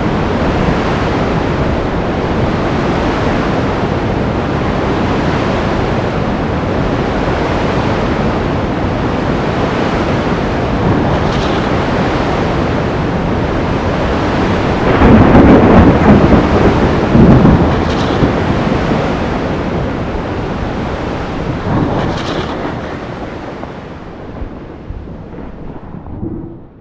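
Sea storm: a steady rush of rain and surf with rumbling thunder, a loud thunder crash about fifteen seconds in, and a few sharp cracks. The whole sound fades down near the end.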